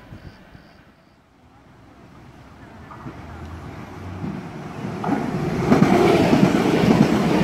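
Regional multiple-unit passenger train approaching and passing close by at speed: a rumble and rush of air that builds from a few seconds in and is loudest near the end.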